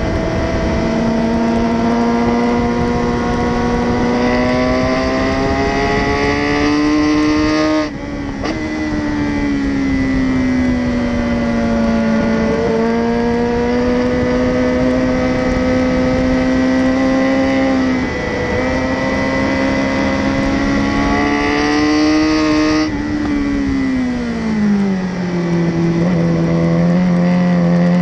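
Sport motorcycle engine heard from on board at track speed. Its pitch climbs steadily, breaks sharply at about eight seconds as it shifts gear, then falls and rises with the throttle. Near the end the pitch drops steeply as it slows for a corner, then begins to climb again.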